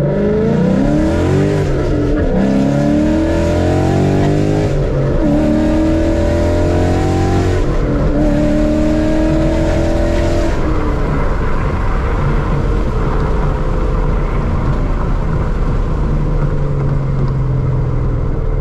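Ford Coyote 5.0 V8 in a tuned 2013 Mustang GT under hard acceleration. The engine pitch rises through several gears, dropping sharply at each upshift. About ten seconds in the throttle is lifted and it settles to a steadier, lower running note.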